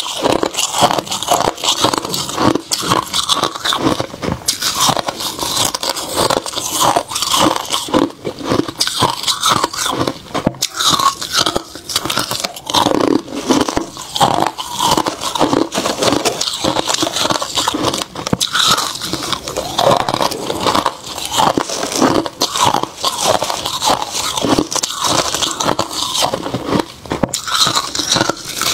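Freezer frost being bitten and chewed, a dense crackling crunch that runs on without a break, mixed with a gloved hand scraping through a tray of loose frost.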